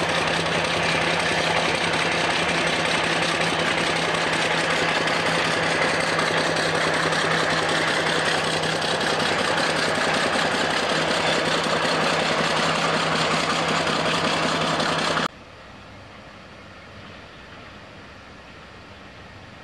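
Baldwin first-generation diesel switcher locomotive's engine running loud and steady as the locomotive moves past at close range. It cuts off abruptly about fifteen seconds in, leaving a much fainter steady background.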